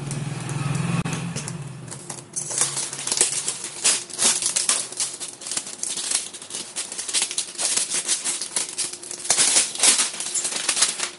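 A plastic-sleeved mailer parcel being torn open by hand: dense, irregular crinkling and tearing of plastic and paper packaging, busier from about two seconds in.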